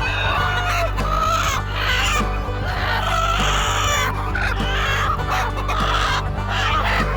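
Chickens clucking and calling, many short overlapping calls, over a steady low background hum or music bed.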